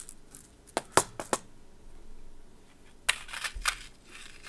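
Small hard clicks and taps of jewelry findings and tools being picked up and handled on a work surface: three quick clicks about a second in, then a busier patch of clicking and rustling about three seconds in.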